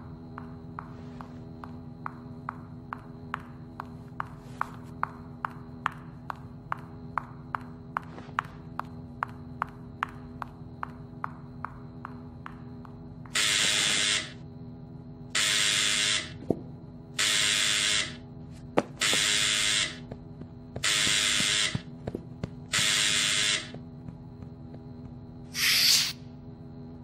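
Cartoon sound effects over a low steady hum. A regular ticking runs about twice a second, then six loud hissing bursts of under a second each come about two seconds apart, and a short whoosh sounds near the end.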